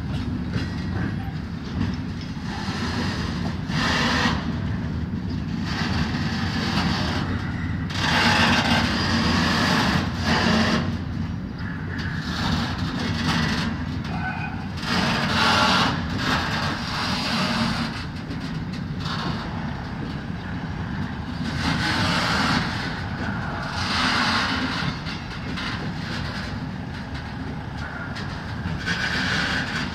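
Container freight train's flat wagons rolling past: a steady low rumble of wheels on rail, with louder noisy surges every couple of seconds as the wagons go by.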